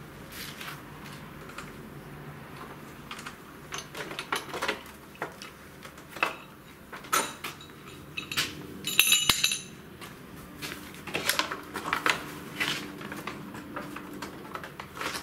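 Scattered metallic clinks and knocks of hand tools and metal parts while a Suzuki Bandit 600's tail section is unbolted. One ringing metal clink about nine seconds in is the loudest.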